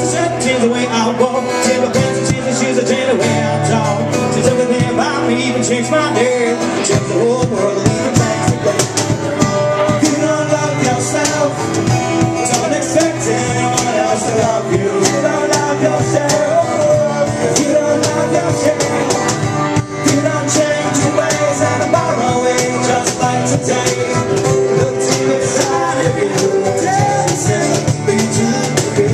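Acoustic band playing live: strummed acoustic guitars carry a steady rhythm.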